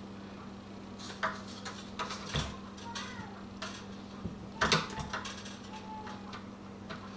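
Metal clicks and clinks of old deadbolt hardware being worked loose and pulled from a door, with a few short squeaks, the loudest knock a little before the five-second mark. A steady low hum runs underneath.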